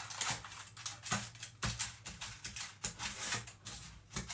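Irregular clicks, taps and crinkles from dough being pressed by hand into a metal baking tin lined with baking paper.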